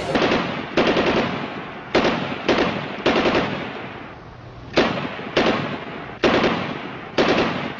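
About ten loud bangs at uneven intervals, each dying away over about a second.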